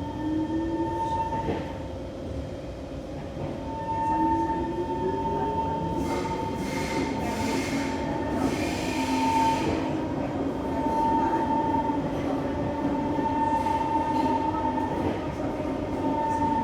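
Kawasaki C151 metro train running through a tunnel: steady rumble with a motor whine that rises in pitch at the start and again about four seconds in, and a hiss of wheel noise about six to ten seconds in.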